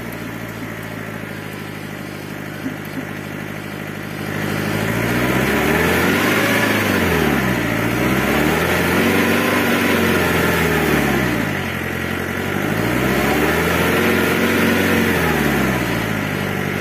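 JCB loader's engine idling steadily, then revving up and settling back down three times.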